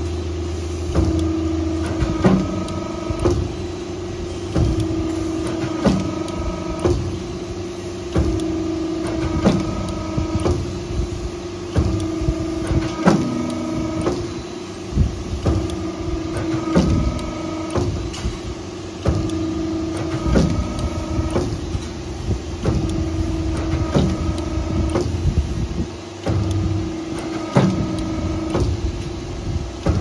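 Hydraulic crimp-curving press on a roof sheet roll forming machine running in automatic mode. The hydraulic oil pump hums steadily, a whine starts and stops between strokes as the sheet is fed forward, and the crimping die clunks every second or two as it presses the steel sheet into a curve.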